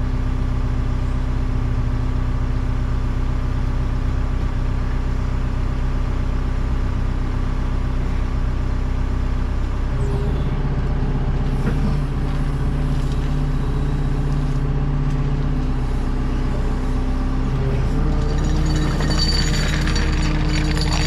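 Diesel engine of a heavy digging machine running steadily while it lifts a chained precast dry well section. The engine note steps up about halfway through and again near the end.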